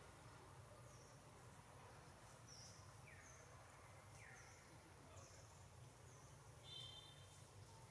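Faint forest ambience: scattered short, high, falling chirps and a brief buzzing trill near the end, over a low steady hum.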